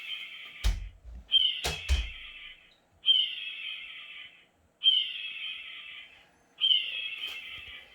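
Repeated harsh screams of a raptor (hawk or eagle) call recording, each about a second long, starting loud and trailing off, roughly every second and a half. Dull thumps come about a second and two seconds in.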